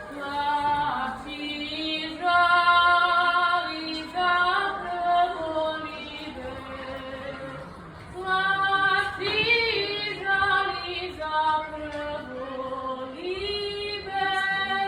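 A girl's solo singing voice, holding long sung notes, with a wavering vibrato on one note about halfway through.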